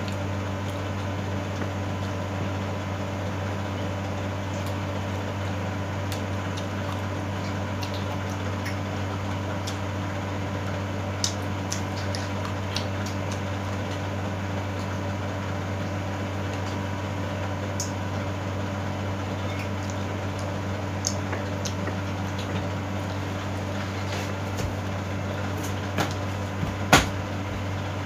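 A steady low mechanical hum, with scattered soft clicks and smacks of someone eating grilled pork belly with the hands and chewing; one sharper click comes near the end.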